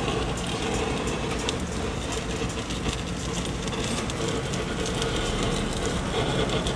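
Handheld butane canister torch hissing steadily as it sears beef bone marrow in a pan, with the fat crackling and popping under the flame.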